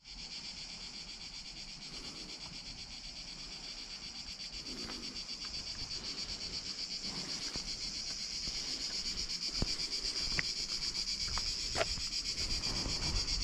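Cicadas singing in chorus: a steady, high, rapidly pulsing buzz that grows slowly louder, with a few soft knocks in the second half.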